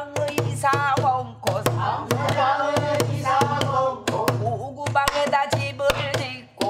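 Woman singing pansori in the fast jajinmori rhythm, keeping time herself with stick strokes on a buk barrel drum. The voice and the drum strikes run together, with a short break near the end before the next line.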